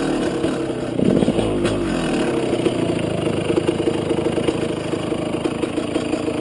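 KTM 200 EXC two-stroke dirt bike engine running at idle, with a short rev about a second in whose pitch then falls away.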